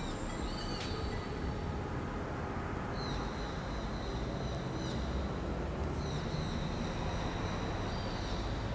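Steady low background rumble with no speech. Thin high whistling tones come in twice, about three seconds in and again about six seconds in, each lasting around two seconds.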